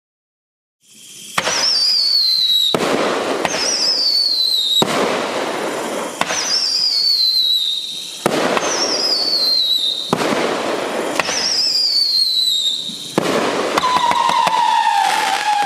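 Magnus 'Midnight Howling' 35-shot fireworks cake firing: a string of shots about a second apart, starting about a second in, most followed by a high whistle that falls in pitch. Near the end a lower falling whistle joins.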